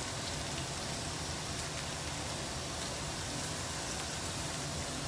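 Chicken pieces sizzling steadily in a hot frying pan, with a few faint pops.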